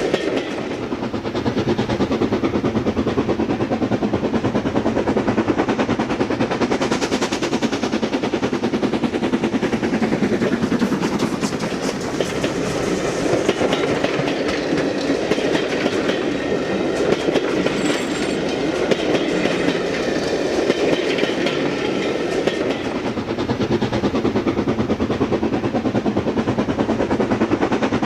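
OO gauge model train running along the track: a steady rattling rumble with rapid clicking of wheels over the rail joints.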